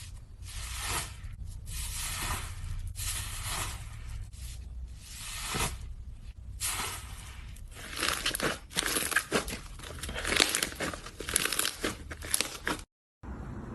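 Slime being worked by hand: repeated squishing and stretching strokes about a second apart, turning about eight seconds in to a dense run of quick crackles and pops. The sound cuts out abruptly for a moment near the end.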